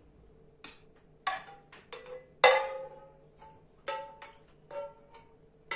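A metal spoon clinking and scraping against a frying pan and a plate while food is served from the pan: about a dozen irregular taps, each with a short ring, the loudest about two and a half seconds in.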